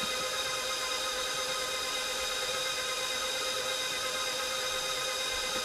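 Electric mixer motor running steadily while creaming butter and sugar: an even whine with several steady tones over a motor hiss.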